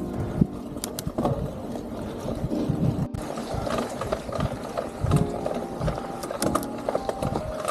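Mountain bike rolling over a rough trail, its chain and frame rattling and knocking over bumps, with the rear freehub buzzing in stretches while coasting.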